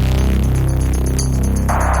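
Electronic background music with a heavy steady bass and a fast ticking hi-hat pattern; a band of hiss enters near the end.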